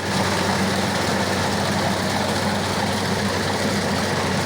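Rice combine harvester running steadily: a low, even engine hum under loud, constant machine noise.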